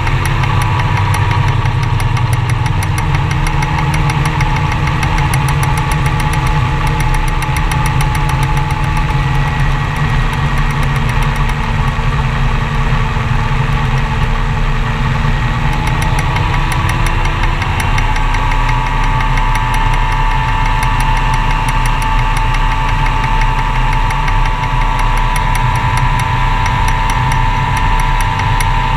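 Light gyroplane's engine running steadily, its note shifting slightly about halfway through.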